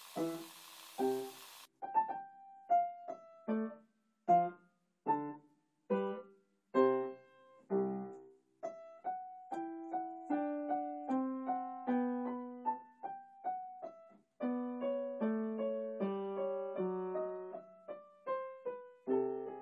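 Solo piano background music: a slow melody, note by note at first and fuller with overlapping notes from about halfway. For the first couple of seconds the pancake frying in the pan sizzles faintly underneath, cutting off suddenly.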